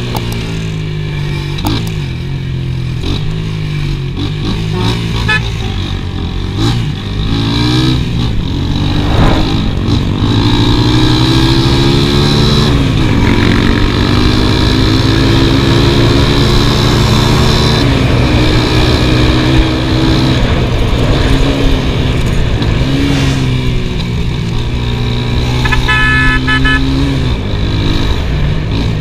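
A small motorcycle engine running under way, its pitch rising and falling repeatedly with the throttle. Near the end a vehicle horn gives a quick series of short beeps.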